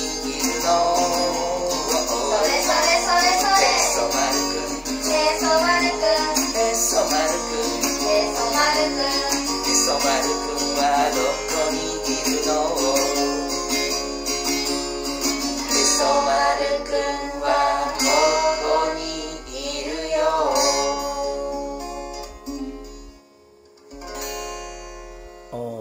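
A children's song played on acoustic guitar, with a voice singing along. The music dies away about three seconds before the end.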